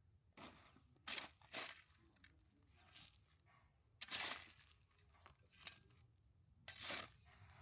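Five short, scattered crunching rustles, the longest about four seconds in, against a quiet background.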